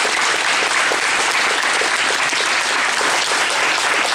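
A group of people applauding steadily, many hands clapping at once.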